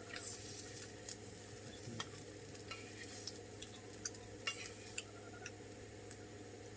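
Utensil stirring food in a hot pan, with irregular scrapes and clicks of the utensil against the pan over a steady low hum.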